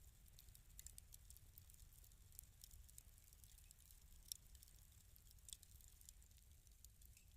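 Wood fire crackling in a fireplace: faint, irregular snaps and pops over a low steady rumble.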